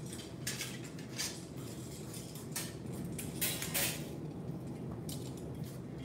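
Pair of steel butterfly knives clinking against each other in irregular sharp metallic clicks as the blades are handled and crossed, loudest a little past the middle, over a steady low hum.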